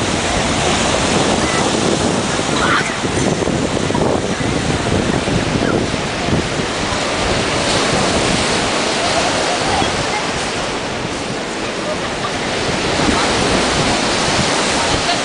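Sea surf breaking on a sandy beach in a steady loud rush, with wind buffeting the microphone.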